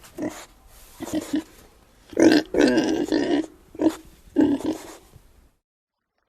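Pig grunting in a series of short calls, the loudest in the middle, stopping near the end.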